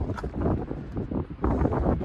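Wind buffeting the microphone in uneven, deep gusts that grow stronger near the end.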